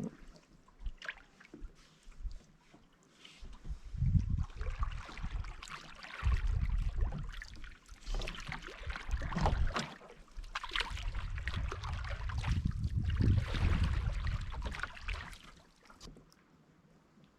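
Canoe being paddled: paddle strokes and water splashing and dripping off the blade. Stretches of low rumble come and go, the loudest sound at times.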